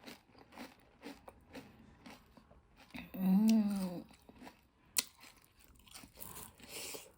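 Pani puri being bitten and chewed: crisp puri shells crunching in the mouth in a run of short cracks. About three seconds in, a one-second hummed vocal sound from the eater, rising and falling in pitch, is the loudest part, followed by a sharp click.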